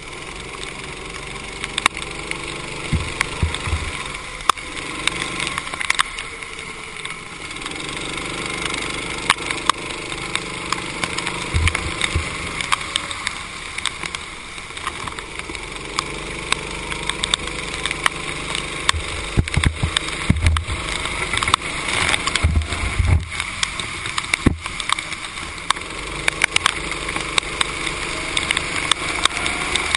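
Kart engine heard from an onboard camera, its pitch rising and falling again and again as the kart accelerates and slows through the corners. Over it lies a hiss of water spray off the wet track, with frequent sharp clicks.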